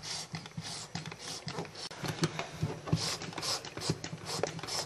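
Foaming hand-soap pump dispenser pressed again and again, giving a series of short, irregular squirts of foam into cupped hands, with light knocks from handling the bottle.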